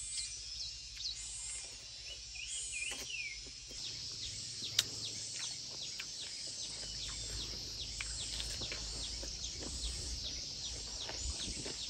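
Birds chirping: many quick, falling chirps, growing denser about four seconds in, with a few warbling calls near the three-second mark, over a steady high hiss.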